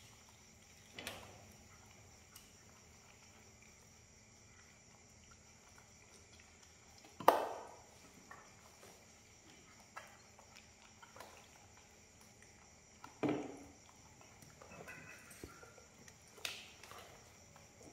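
A few sudden knocks or thumps with quiet stretches between, the loudest about seven seconds in and another about thirteen seconds in.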